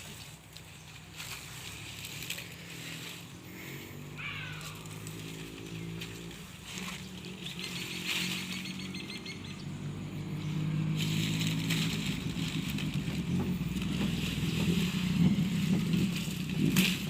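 An engine running steadily, its hum shifting in pitch and growing louder from about ten seconds in.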